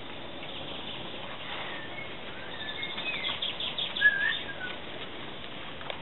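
Fledgling common blackbird chirping: a few short chirps that glide up and down, with a quick run of clicks in between, loudest about four seconds in.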